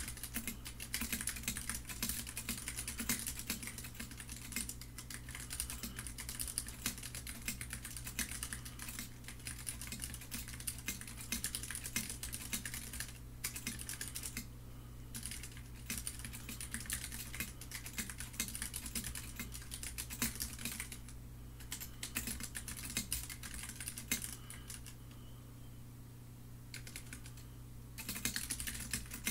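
Typing on the Neutrino custom mechanical keyboard with Cherry MX Brown switches: a fast, continuous clatter of keystrokes with a few brief pauses.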